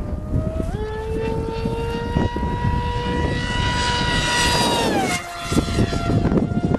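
Electric RC jet making a fast pass: its motor's high whine steps up in pitch about a second in, holds, then drops in pitch about five seconds in as it goes by. That falling Doppler shift is what is used to work out its speed. Wind rumbles on the microphone underneath.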